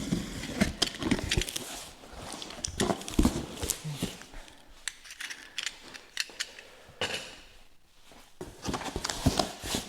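Cardboard shipping box and packaging being opened and handled: irregular knocks, clicks and rustling, with a quieter stretch about two-thirds of the way through.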